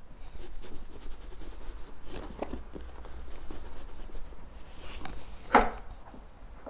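Leather conditioner being rubbed into the vachetta leather handles of a vintage Louis Vuitton bag with a small applicator: a run of soft, irregular scrubbing strokes, with one sharper, louder scrape or knock about five and a half seconds in.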